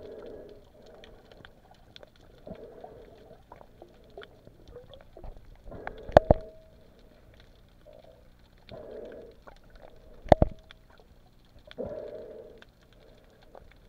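Muffled underwater sound picked up through an action camera's waterproof housing: soft swishes of water that come back every one to three seconds, and two sharp knocks, about six and ten seconds in, as a finger touches the housing.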